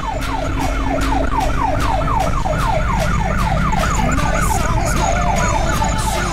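Fire truck siren sounding in quick falling sweeps, about four a second, over the low steady hum of the truck's engine, heard from inside the cab.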